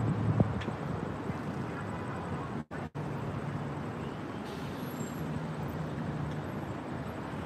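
Road traffic noise with a low engine hum, the sound cutting out twice for an instant about two and a half seconds in.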